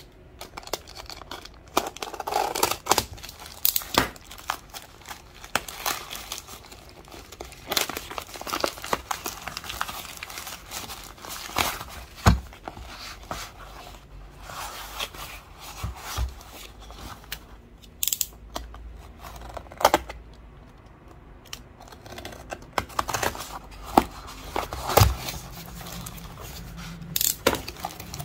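Packaging being opened by hand: a plastic mailer bag slit with a utility knife and torn, crinkling and rustling, then a taped cardboard box handled and opened and plastic bags of small parts crinkling. Irregular clicks and knocks run through it, with a couple of louder knocks.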